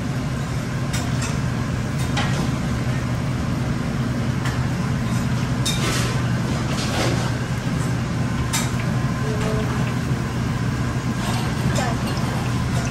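Steady low roar of a commercial kitchen's exhaust hood and gas burners, with battered pieces sizzling as they deep-fry in a wok of hot oil. Scattered sharp pops and clinks come through it.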